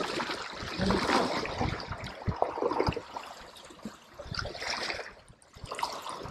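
Small waves washing and splashing against the stone blocks of a jetty, rising and falling unevenly.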